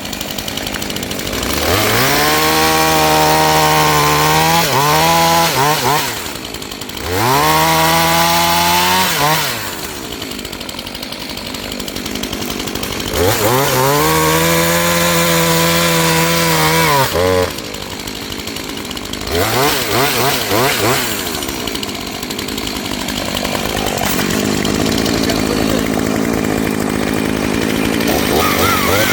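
Two-stroke chainsaw engine running: three times it revs up to full throttle and falls back to idle. After those comes a run of quick throttle blips, then a longer idle, and it revs up again at the very end. The saw runs and revs cleanly despite impact damage from being thrown onto the road.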